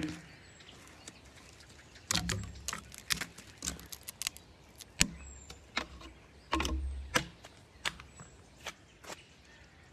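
Irregular sharp cracks and crunches of dry twigs and forest litter breaking under a person moving and crouching, with clothing and gear rustling and a couple of dull low bumps on the microphone. No elk call is heard.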